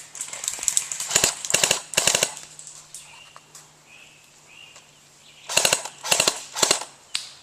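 Airsoft electric guns firing full-auto in short rapid bursts of sharp clicks, one group about a second in and another near the end.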